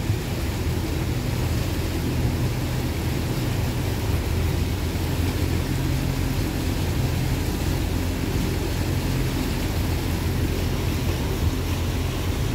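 Motorboat engine running steadily under way, a low even drone heard from on board, with a steady rush of wind and water.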